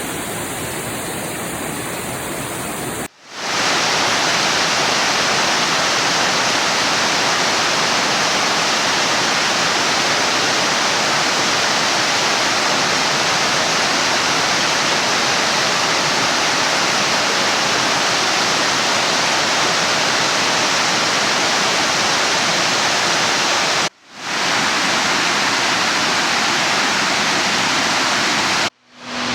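Mountain stream water rushing steadily over rocks, a full, even roar of cascading water. It drops out sharply for a moment about three seconds in, again after about twenty-four seconds, and just before the end, and is louder after the first break.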